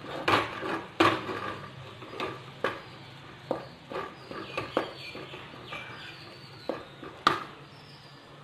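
Wooden spatula stirring thick, sticky rice-flour dough in a metal kadai, knocking and scraping against the pan in irregular knocks about one or two a second, loudest about a second in and near the end.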